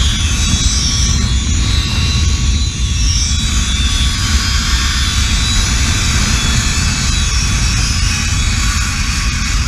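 Wind rushing over the camera's microphone during a fast zipline ride, a loud steady rumble, with the trolley's pulleys running along the steel cable as a high hiss on top.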